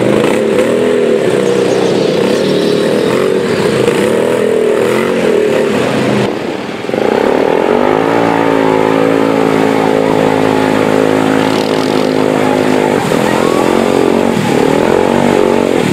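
Quad ATV engine revving as it hauls a bathtub sled through a muddy, water-filled trench. The revs rise and fall repeatedly, then about seven seconds in climb to a steady high rev held for about six seconds, then rise and fall again near the end.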